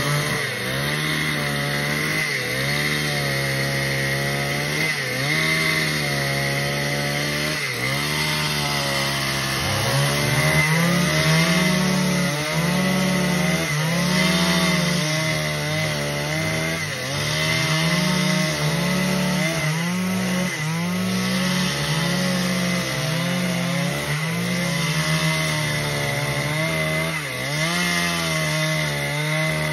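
Gasoline chainsaw running under load, ripping lengthwise through a timber beam to cut a long plank. The engine's pitch dips and recovers again and again, every second or two, as the chain bites into the wood.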